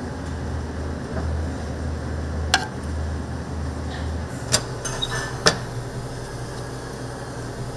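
Metal kitchen utensils clinking: a few sharp, brief clinks, the loudest about four and a half and five and a half seconds in, over a steady low rumble.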